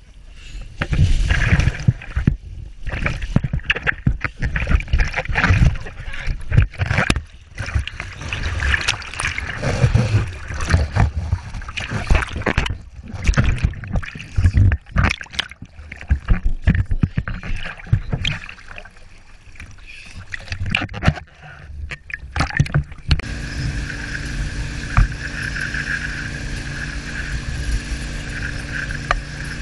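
Gusty wind buffeting and water splashing against an action camera's microphone. About three quarters of the way in, this gives way to a steady rush of wake water with the even drone of the towing wakesurf boat's engine.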